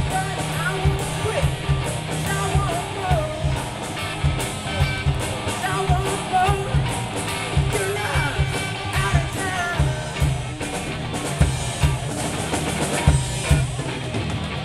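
Live rock band playing through a PA system: a drum kit keeping a steady beat under electric guitars and bass, with a lead vocalist singing.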